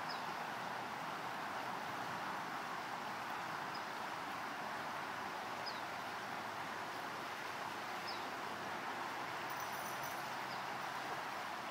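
Shallow creek water rushing steadily over rocky riffles, with a bird chirping faintly a few times, short high notes every few seconds.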